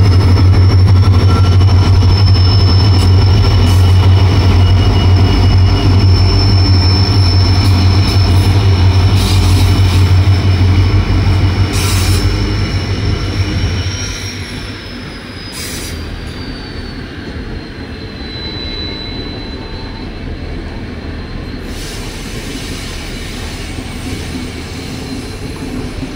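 A WDP4B diesel locomotive's engine drones loudly as it passes close, over the rumble of coaches and a steady high wheel squeal. After about 14 seconds the engine drone fades and the squeal slides lower. Passenger coaches keep rumbling and clattering past, with a few sharp clicks.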